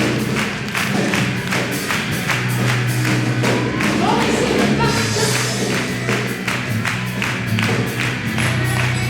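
Gospel worship music played live with a steady percussive beat over a sustained bass line.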